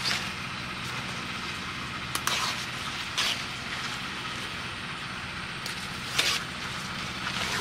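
Banana leaves rustling and crackling as they are wiped with a cloth and handled, with sharp crinkles about two, three and six seconds in. A steady low hum runs underneath.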